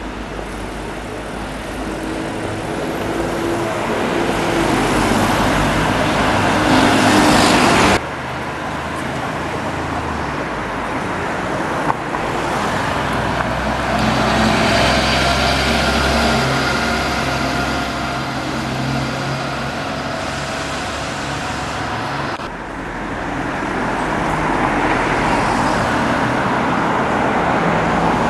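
Buses driving past along a town street amid general traffic, engines running and growing louder as the first bus nears. The sound changes abruptly twice, about eight seconds in and again near the three-quarter mark.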